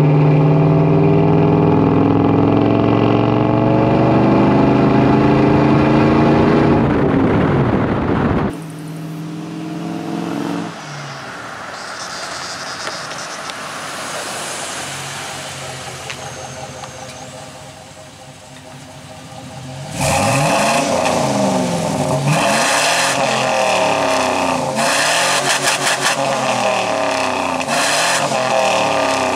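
1999 Chevy Silverado's 6.0 L LQ4 V8 exhaust through a Summit Racing dual-chamber muffler on a 3-inch pipe, heard close up under acceleration with the pitch climbing steadily. It then cuts off abruptly, and the truck is heard quieter and farther away. In the last third it is close again, revved in repeated blips that rise and fall.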